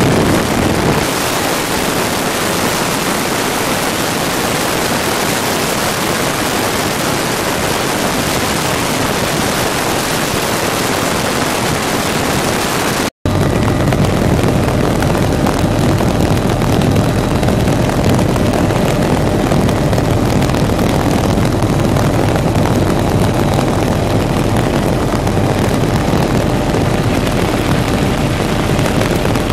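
Helicopter in flight with its doors off: steady engine and rotor noise mixed with heavy wind rush on the microphone. The sound cuts out for an instant about 13 seconds in, and the low rumble is stronger after that.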